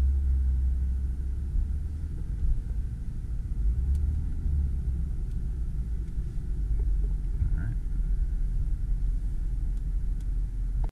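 Steady low rumble heard from inside a car's cabin, with little hiss or high sound.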